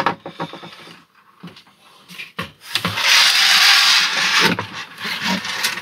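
Handling noise from a camper-van window frame with its blackout blind cassette: light plastic clicks and knocks, and about three seconds in a loud scrape lasting about a second and a half as the frame is moved onto the table.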